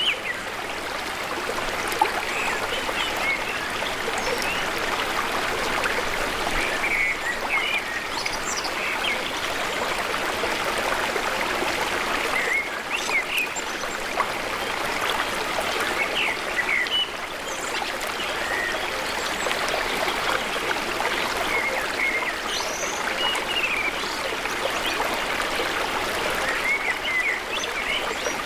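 Jhelum River water flowing with a steady rushing sound, with short bird chirps scattered through it.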